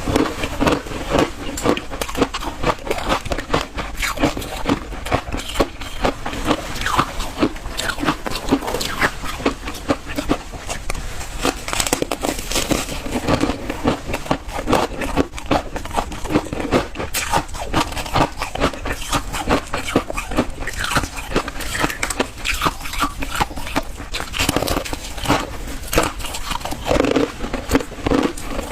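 A person biting and chewing frozen ice: a dense, unbroken run of crisp crunches and crackles.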